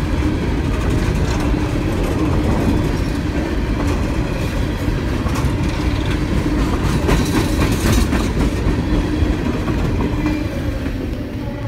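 Coal train's cars rolling past over the rails, a steady rumble with the clickety-clack of wheels over rail joints, dying away near the end as the last cars pass.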